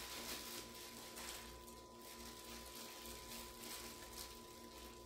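Quiet room tone: a faint steady hum with a few soft, faint ticks.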